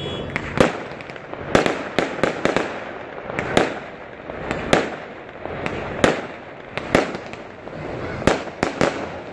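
Aerial fireworks bursting: an irregular series of sharp bangs and cracks, roughly two a second, over a steady crackle.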